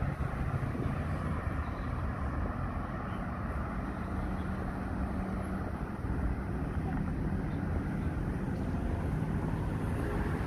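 Steady low hum of street traffic, with a faint engine tone running under it.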